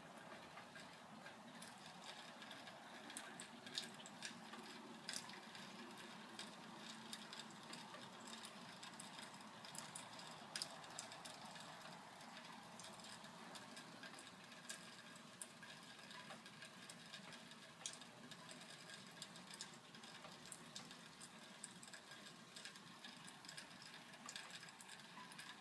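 Faint light rain pattering and dripping, with scattered irregular small ticks over a steady soft hiss.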